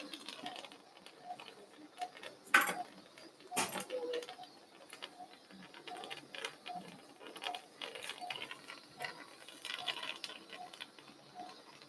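Faint, evenly repeated soft beeps, about two a second, with two sharp clicks about two and a half and three and a half seconds in.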